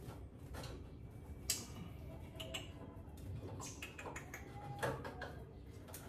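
Light clicks and small rattles of hands handling a wire birdcage, with a few short squeaks, the sharpest clicks about one and a half and about five seconds in.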